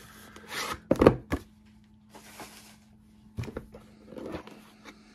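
Cardboard 2020 Topps Dynasty box being opened by hand: rustling and sliding of the cardboard, with a few sharp knocks about a second in that are the loudest part.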